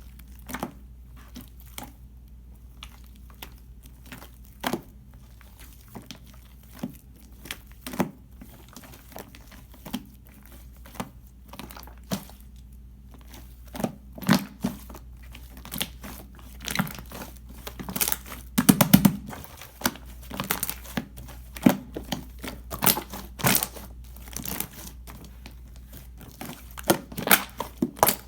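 Clear slime mixed with shaving foam being squished and stretched by hand, giving sharp crackling pops and clicks. They are scattered at first, then come thicker and louder from about halfway, loudest around two-thirds of the way through.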